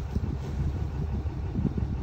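Wind buffeting the phone's microphone: a low, uneven rumble.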